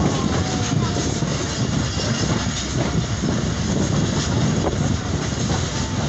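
Moving passenger train heard from its own coach window: the steady rumble of the carriages' wheels running on the rails, heaviest at the low end, with a few faint clicks.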